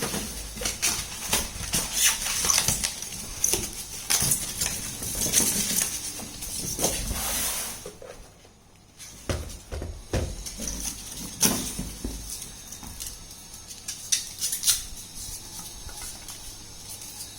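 Irregular clicks, knocks and rustling of plastic parts and packaging being handled, with a brief lull about eight seconds in.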